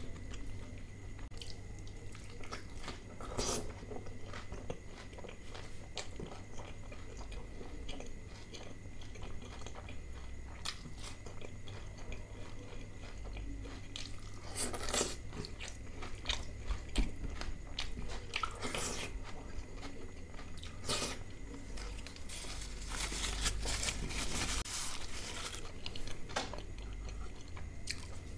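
Close mouth sounds of a person eating butter chicken with raw onion: steady wet chewing with several louder crisp crunching bites, the loudest about halfway through and a run of them a few seconds before the end.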